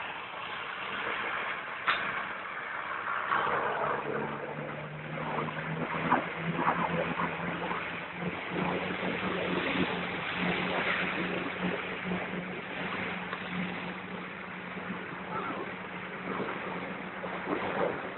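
Off-road vehicle's engine running steadily as it drives through river water, with water rushing and splashing around it. The engine note rises a little about eight seconds in.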